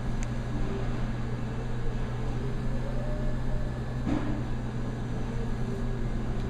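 Steady low mechanical hum, like a running fan or appliance motor, with no clear change; any sound of the knife going through the salmon is faint beneath it.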